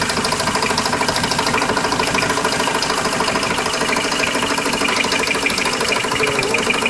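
Car engine idling with a fast, steady ticking that keeps time with the engine, which the owner places somewhere around the oil pan and cannot yet explain.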